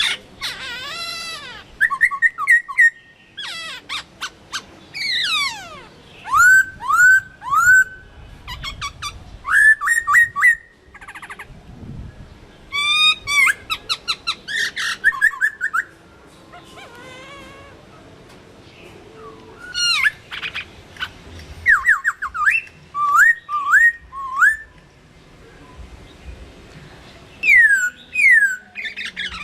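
Chinese hwamei singing: loud, varied whistled phrases, with runs of quickly repeated down-slurred notes, sung in bursts with short pauses between.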